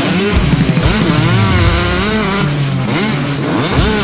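Motorcycle engine revving in several rising and falling sweeps, over a steady rock-guitar backing.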